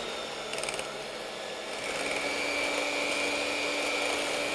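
Sunbeam electric hand mixer running, its beaters whipping butter and eggs in a glass bowl: a steady motor hum that steps up slightly in pitch about two seconds in, with a brief rattle about half a second in.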